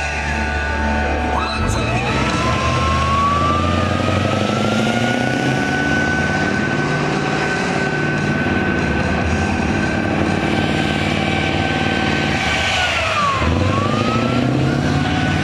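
CV9030 tracked infantry fighting vehicle driving and manoeuvring: its engine runs steadily under a high whine that rises about two seconds in, holds, then dips briefly and climbs again near the end.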